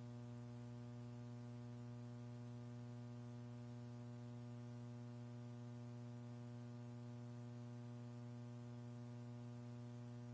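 Steady electrical hum on an audio line: a low, unchanging drone with a stack of fainter overtones and a little hiss.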